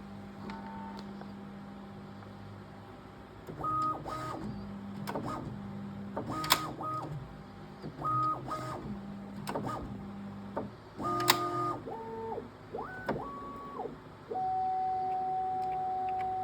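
Bambu Lab P2S 3D printer's motors whining in a series of short moves at several pitches during the filament-drying prepare phase, over a steady low hum, with a couple of sharp clicks. Near the end a steady whine sets in and holds.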